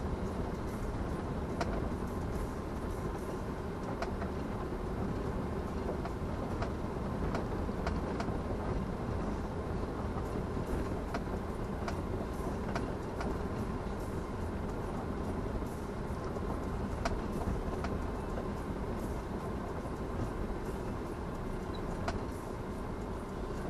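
Steady road and engine rumble inside a Tata Safari SUV's cabin as it drives along a construction-site service road, with scattered light knocks and rattles every few seconds.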